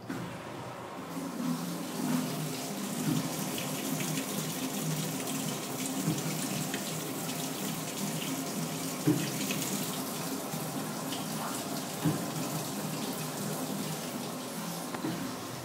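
Water rushing through a washing machine, starting suddenly and running steadily with a churning gurgle and a few light knocks. The machine is a second-hand unit with a faulty control program.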